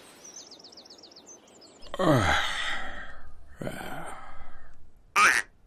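A few high bird chirps, then two long wheezy, sighing sounds about two and four seconds in, the first sliding steeply down in pitch, and a short squeak near the end.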